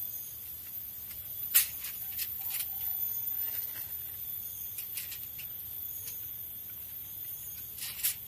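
Aluminium foil crinkling and rustling under hands working a fish laid on it, with a few sharp crackles, the loudest about a second and a half in.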